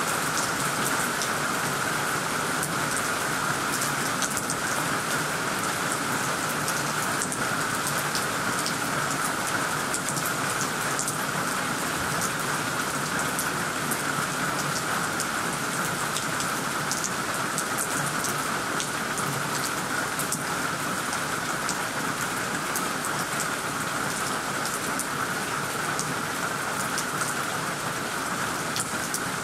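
Heavy rain pouring steadily onto tree leaves and a tiled roof: a dense, even hiss with many small drop ticks.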